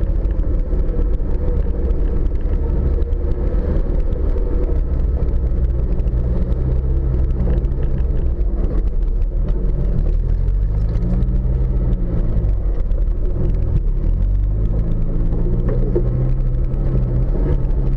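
Off-road vehicle's engine running while driving over rough ground, a steady low rumble whose pitch rises and falls as the revs change, most clearly about ten seconds in.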